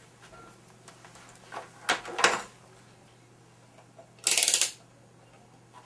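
Handling noise from a handheld multimeter and its test leads on a desk: two sharp clicks about two seconds in, then a loud half-second scrape about four seconds in.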